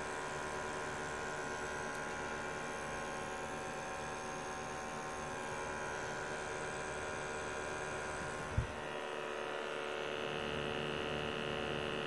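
Steady hum and buzz of small running motors: the Dewalt DXH12B cordless propane heater's fan and burner together with a gas detector's sampling pump. A brief bump comes about eight and a half seconds in, after which the mix of tones shifts slightly.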